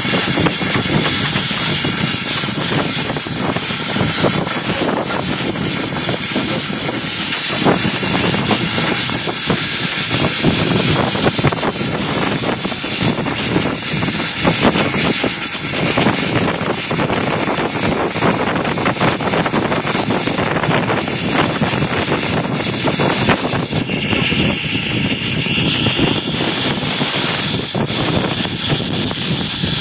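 Inside the cab of S.P.& S. 700, a 4-8-4 steam locomotive under way: a loud, steady rush of steam exhaust, running gear and wind, with a thin steady high whine.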